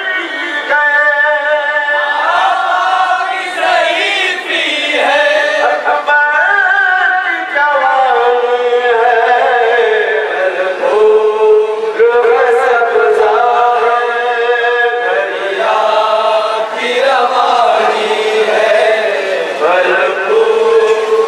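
A man chanting a noha, a sung Urdu lament, into a microphone in long held melodic lines, with other men's voices joining in.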